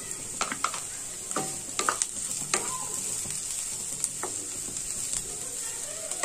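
Chopped capsicum and onions sizzling in hot oil in a non-stick pan while a spatula stirs them. Scattered scrapes and taps of the spatula against the pan are heard throughout.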